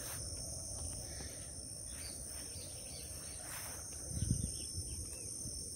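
Steady high-pitched insect drone, two even tones held throughout, with a brief low rumble about four seconds in.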